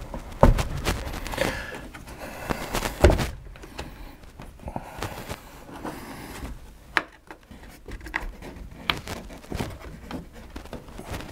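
Rubber window seal giving as the glass of a 1988 Ford Bronco hard top's side window is pushed out by hand, with rubbing and scraping of rubber against glass and a few sharp knocks as the pane shifts in its frame.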